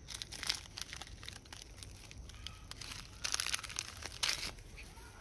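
Plastic snack wrapper crinkling in a macaque's hands, in irregular bursts, the loudest a little after three seconds and just after four.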